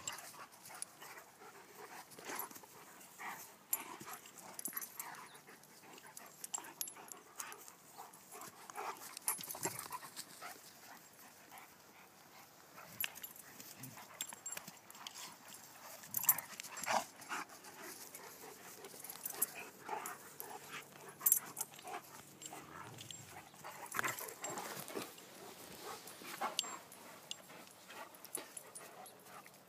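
Two Irish Wolfhounds, a puppy and an adult, play-wrestling: panting with many irregular short, sharp sounds of mouthing and scuffling.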